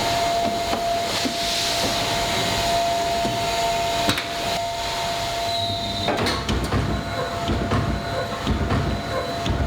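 Food-factory machinery running, with a steady whine over a continuous mechanical din and a sharp knock about four seconds in. About six seconds in, a deeper rumble and irregular clatter join in.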